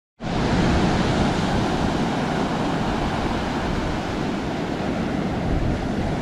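Ocean surf rushing loudly and steadily, starting abruptly just after the start.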